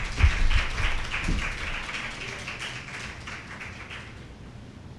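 Small audience applauding, the clapping dying away over about four seconds, with a few low thumps in the first second and a half.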